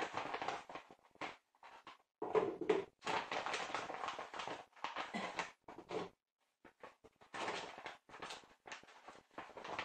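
Plastic pouch of Finish Quantum dishwasher tablets crinkling and rustling as it is handled and opened, in irregular bursts with short pauses.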